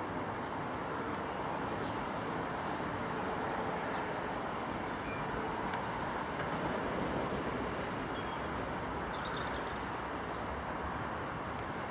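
Steam locomotive 46233, an LMS Princess Coronation Class Pacific, approaching at slow speed: a steady rushing hiss with no distinct exhaust beats.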